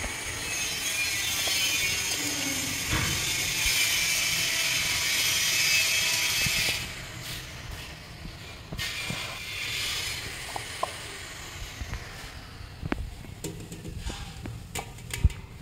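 Steady mechanical whirring noise that stops suddenly about seven seconds in, followed by quieter scattered clicks and taps.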